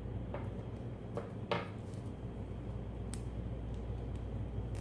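A few light clicks and taps of small hard parts being handled, about four in all, the sharpest about a second and a half in, over a steady low hum.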